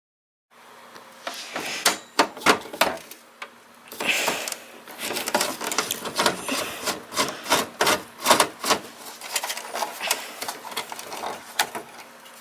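Screwdriver turning out the motherboard screws inside a desktop computer case: a dense run of irregular clicks and scraping as the bit works in the screw heads.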